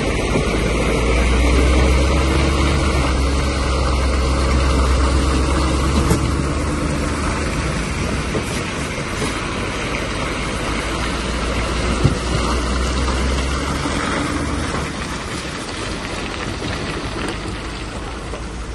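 Scania V8 650 hp log truck, loaded with logs, driving past: a deep engine drone with tyre noise, loudest in the first half as the cab goes by, then slowly fading as the trailer moves away. One sharp knock about twelve seconds in.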